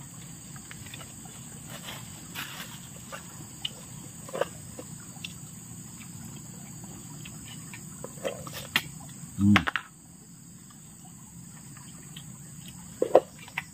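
Steady high-pitched insect chirring, with scattered soft clicks and two short louder sounds, one about two-thirds of the way through and one near the end.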